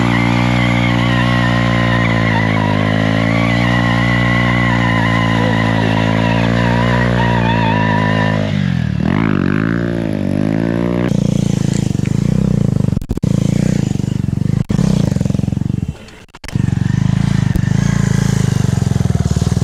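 Motorcycle engine running at a steady speed, then revving up and down a few times about nine seconds in. In the later part it runs on with a rougher sound and cuts out briefly a few times.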